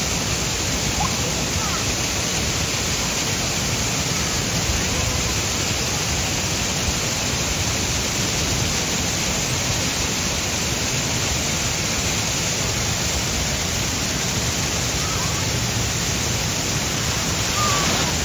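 Steady heavy rush of water pouring down a water ride's drop chute into its splash pool. A slight surge near the end as a boat of riders splashes down.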